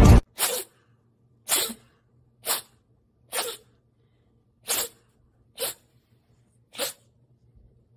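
Music cuts off right at the start, then a cat sneezes seven times in a row, short sharp sneezes about a second apart.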